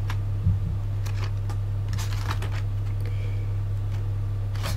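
Scattered faint clicks and light rustles of plastic action-figure packaging being handled as a figure is worked free of it, over a steady low hum.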